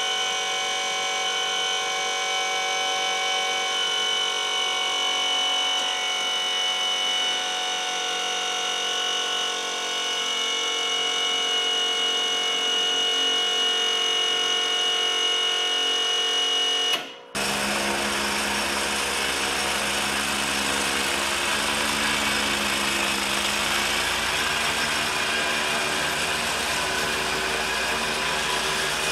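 Steady high-pitched motor whine while the hydraulic ram under the mower frame retracts. Some two-thirds of the way through it cuts off abruptly, and the steady running of the Exmark zero-turn mower's engine and Toro 52" snowblower attachment takes over.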